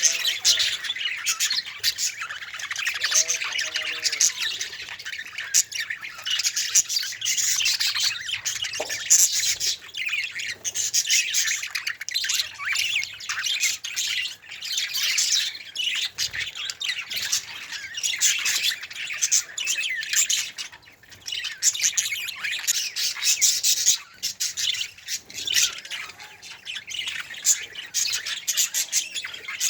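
Budgerigars chirping and squawking without a break, several calls overlapping.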